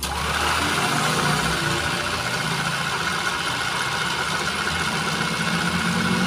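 Household electric sewing machine running steadily, its motor and needle mechanism stitching at an even speed. It starts suddenly.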